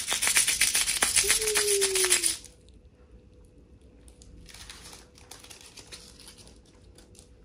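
Hands crushing and crumpling white foam packing material: a dense run of crackling that stops after about two and a half seconds, followed by softer, sparser crinkling.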